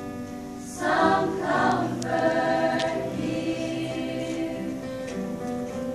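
Mixed school choir singing in parts, with held notes. The voices drop soft at first and come back in strongly about a second in.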